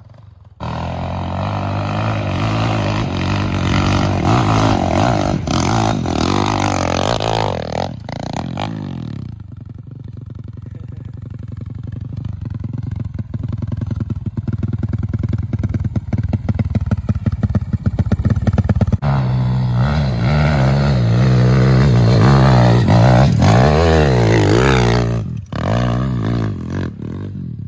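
Small four-stroke pit bike engines revving hard on a steep dirt hill climb, the revs rising and falling with the throttle. They ease off to a lower, quieter note for about ten seconds in the middle, then rev hard again.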